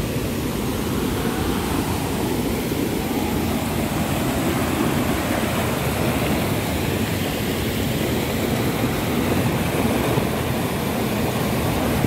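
Fast mountain stream rushing over rocks and small cascades: a steady, loud rush of white water.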